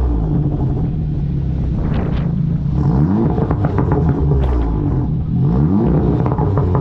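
Tuned 400 bhp Audi S3 8V's turbocharged 2.0-litre four-cylinder engine on launch control, revs held steady with quick climbs about three seconds and five and a half seconds in. A few sharp exhaust crackles come through.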